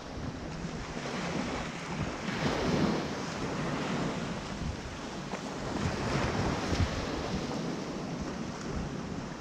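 Small surf washing onto a sandy beach, with wind buffeting the microphone.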